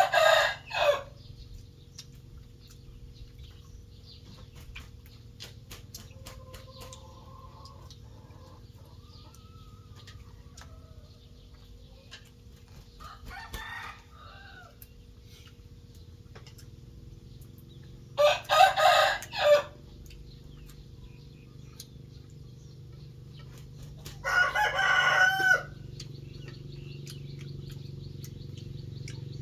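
Roosters crowing: one call at the start, then two more about two-thirds in, over a steady low background hum.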